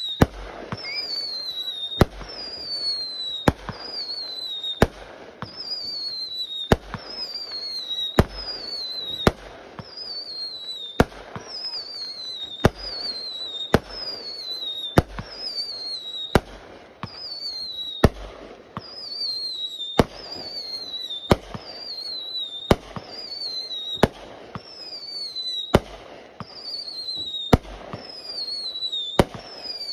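Aerial fireworks firing a steady run of shots, about one every one and a half seconds. Each is a sharp bang followed by a short falling whistle, with crackling in between.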